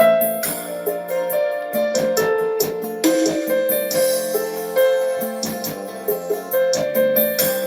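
Recorded music playing through a small homemade speaker box: an instrumental keyboard passage with light ticking percussion and no singing, thin in the bass.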